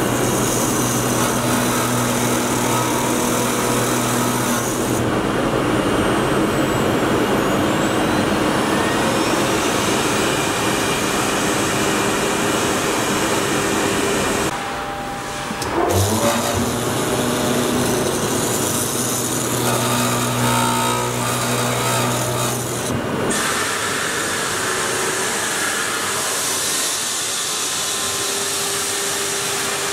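CNC oscillating-knife cutting machine with router spindle running: a steady mechanical hum and hiss with a couple of low held tones underneath. The sound dips briefly about halfway through, and the held tones drop out for a while later on.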